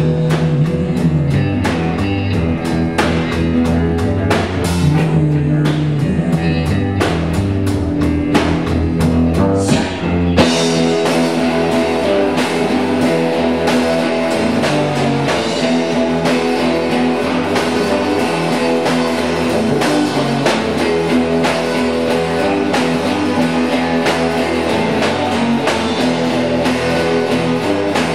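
Amateur band playing a slow blues jam live, with electric bass, drum kit and guitar. About ten seconds in, the deep bass notes drop away and the higher instruments carry on.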